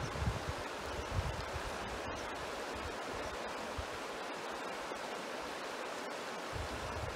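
Steady rushing of a fast-flowing river current, with low buffets of wind on the microphone in the first second or so and again near the end.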